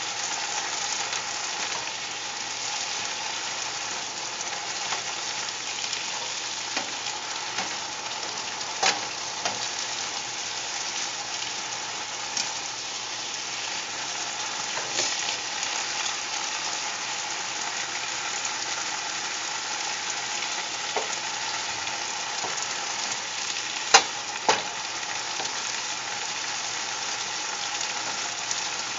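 Asparagus sizzling steadily in a very hot pan while the added water cooks off, stirred with a plastic spatula. A few sharp knocks of the spatula against the pan stand out, the loudest near the end.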